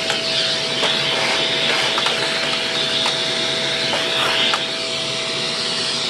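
Vacuum cleaner running steadily, its motor whine holding one pitch, with a few faint clicks of dirt being sucked up.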